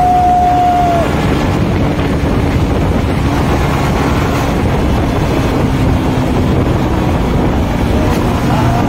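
Steady road and engine noise from a vehicle on the move, with wind buffeting the microphone. A long, steady horn note ends about a second in.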